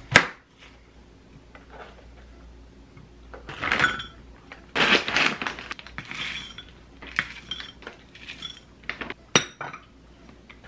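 Kitchen tableware sounds: a sharp knock of a knife on a ceramic plate right at the start as an apple is cut, then granola rattling from a plastic scoop into a glass mug for a few seconds, followed by scattered clinks of glass and china, one sharp clink near the end.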